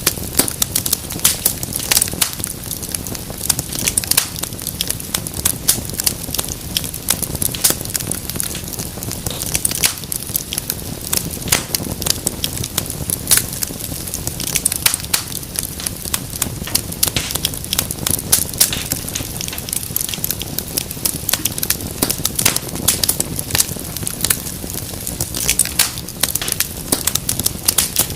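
Wood fire crackling in a fireplace: a steady run of dense, sharp pops and snaps over a low, even rush of burning.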